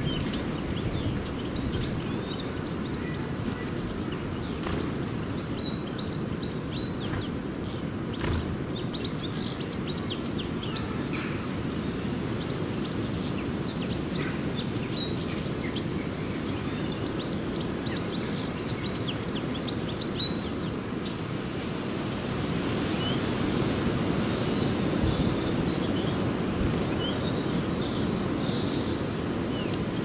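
A flock of small birds feeding, giving many short, rapid chirps and twitters over a steady low rumble of background noise. The chirping is busiest in the first half and picks up again near the end, with a couple of sharp clicks about seven to eight seconds in.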